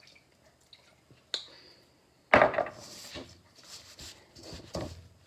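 Kitchen utensils and dishes being handled: a sharp click with a short high ring, then a louder clatter a second later, followed by smaller knocks.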